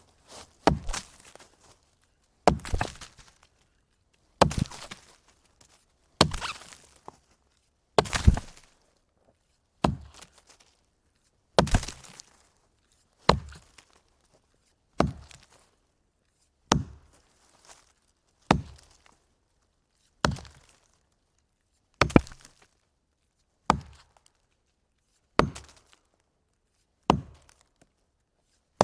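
A log being chopped: about sixteen evenly paced blows, one roughly every second and three-quarters, each a sharp hit that dies away quickly.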